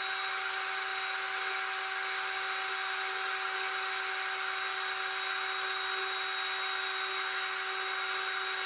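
Cordless drill running steadily at constant speed, a fixed whine over a hiss, as its bare rubber sanding drum is held against a Linotype keyboard cam whose gummed bearing still won't turn.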